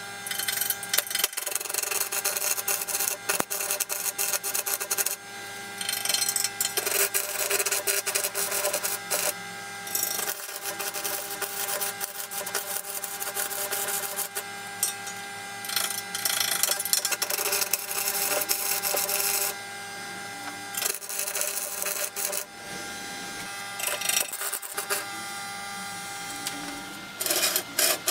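Stick-welding arc crackling and hissing as the electrode burns. It comes in several runs of a few seconds each, separated by short pauses.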